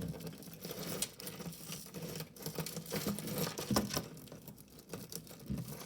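Pieces of jewelry being handled: scattered small clicks and light clinks at an uneven pace.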